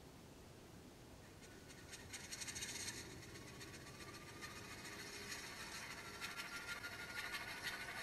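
An Alco S1 model locomotive's ESU LokSound Select Micro sound decoder playing its newly loaded diesel engine start-up sound through the model's small speaker. It comes in faintly about a second and a half in as a crackly rattle with a thin tone slowly rising in pitch, and grows louder toward the end.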